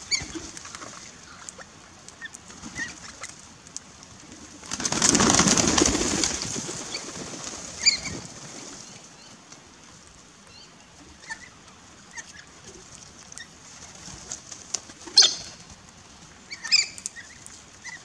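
A flock of galahs flushing together about five seconds in: a loud rush of many flapping wings lasting a second or two. Short, sharp parrot calls sound now and then, the loudest near the middle and twice near the end.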